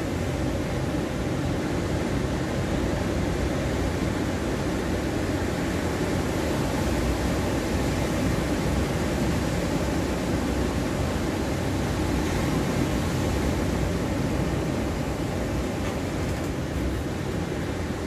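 Ocean surf breaking along a sandy beach: a steady, deep rush of many overlapping waves, with no single crash standing out.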